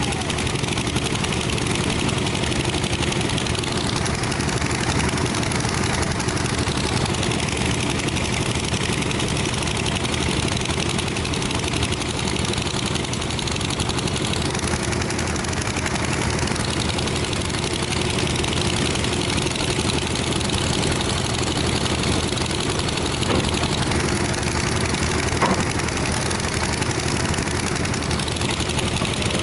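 Kobelco SK210HD crawler excavator's diesel engine running steadily while the hydraulics swing the boom and bucket. The engine note shifts every few seconds with each movement, and there are a couple of faint knocks near the end.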